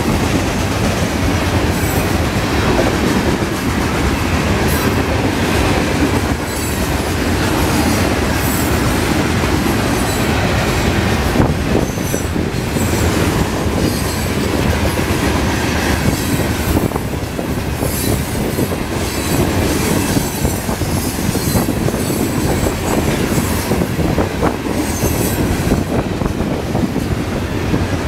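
Freight train of hopper cars rolling past close by: a steady rumble of wheels on the rails with clacking, and brief high wheel squeals now and then.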